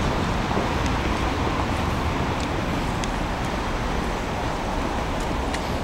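Steady outdoor city background noise: a low rumble of road traffic with a hiss over it and a few faint high ticks.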